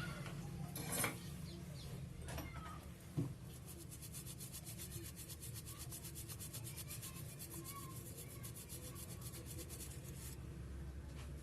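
Faint rubbing and scraping with a few small taps in the first few seconds, from soldering work on a phone's charging-socket pads. A fast, even rasping sets in a few seconds in and stops abruptly near the end, over a low steady hum.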